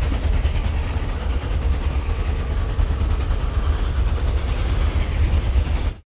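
Steam train running along the rails: a steady, heavy low rumble with a rushing noise over it. It begins and ends abruptly as a single sound-effect clip.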